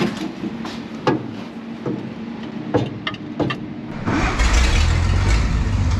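1953 Chevrolet cab-over truck's 235 six-cylinder engine idling, with a few sharp knocks as the floor gear shifter is worked. About four seconds in, the engine sound turns much louder and deeper.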